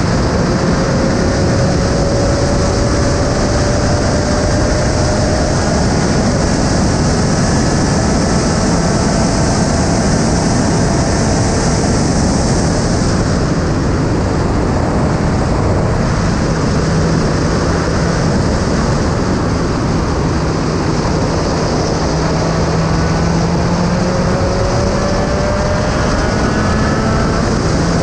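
Onboard sound of a Spec Racer Ford Gen3 (SRF3) race car at speed: its engine note climbs in pitch under acceleration a few times, with a steadier stretch in the middle, under a loud, constant rush of wind and road noise.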